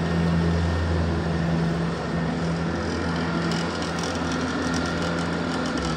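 Front-deck riding mower's engine running steadily while mowing, a low even drone. Faint rapid crackling joins in the second half.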